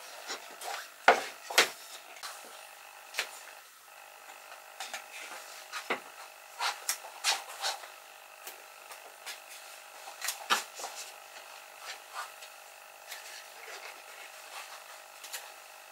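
Pine pallet-wood boards and a box frame being handled on a table: scattered light knocks and taps of wood set down and shifted, with some rubbing of wood against the tabletop.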